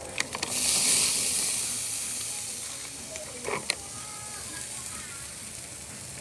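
Shrimp frying in butter in a pan: a loud sizzle swells about half a second in and slowly settles, with a few sharp clicks along the way.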